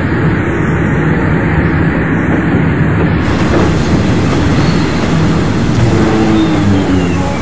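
Steady, loud rumble of a train running into a station. In the second half a faint high tone slides slowly downward.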